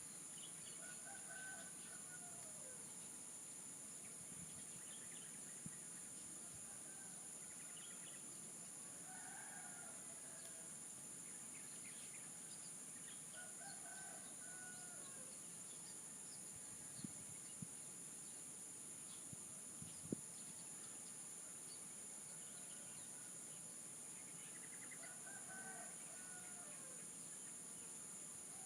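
Roosters crowing faintly four times, several seconds apart, over a steady high-pitched drone of insects. A few small clicks sound in the second half.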